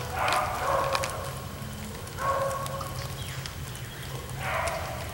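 Beagles baying while running a rabbit's track: drawn-out bawls come about every two seconds, with the loudest about two seconds in.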